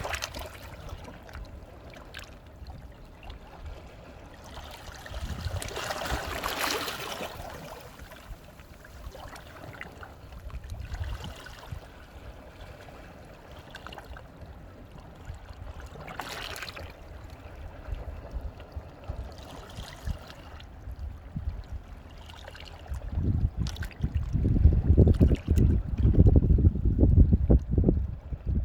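Sea waves washing in over shoreline rocks and trickling back, with a couple of swells of surf. Over the last few seconds a much louder, low rumbling surge comes in.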